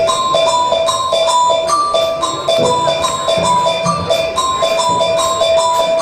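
School rock band playing an instrumental intro: a bright riff of short notes, about three a second, alternating between two pitches, over a light low accompaniment.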